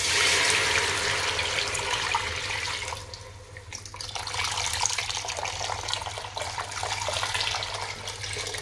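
Meat broth poured from a glass measuring jug into a large pot, splashing steadily as the pot fills. The pour stops briefly about three seconds in, then starts again.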